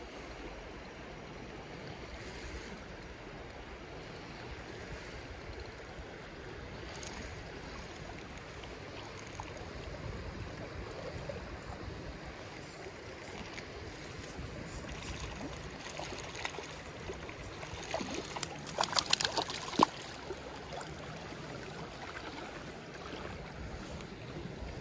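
Steady rush of a shallow creek's flowing water. A short cluster of sharp clicks and rattles comes about eighteen to twenty seconds in.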